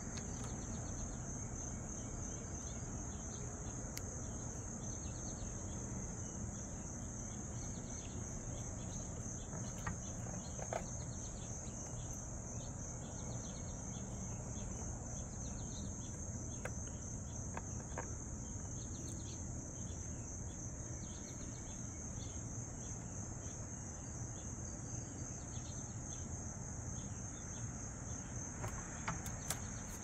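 Steady high-pitched chirring of insects, with a few faint clicks and taps from handling the typewriter's base board, the last near the end.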